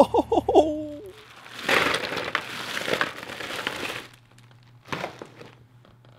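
Ice cubes poured from a plastic bag into a plastic basin: the bag crinkles and the ice clatters in for about two and a half seconds, with a short rustle near the end. A man's groan trails off in the first second.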